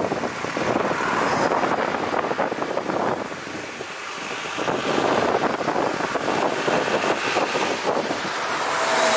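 Road traffic: cars and a three-wheeler moving slowly and idling, with wind on the microphone. The noise rises and falls, getting louder about halfway through.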